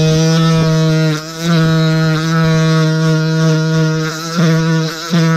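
High-speed rotary tool running a 1,000-grit sandpaper mandrel inside a two-stroke chainsaw cylinder's exhaust port, polishing it: a steady pitched motor whine with brief dips in level as the spinning paper works against the port wall.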